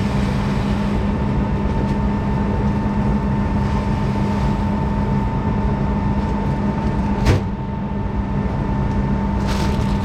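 A farm machine's engine running steadily with an even drone, and one sharp knock about seven seconds in.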